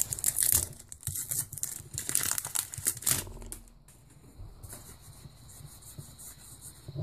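Foil wrapper of a Pokémon TCG booster pack crinkling and tearing as it is ripped open, loudest in the first three seconds. After that comes a soft rustle of the trading cards being slid through the hands.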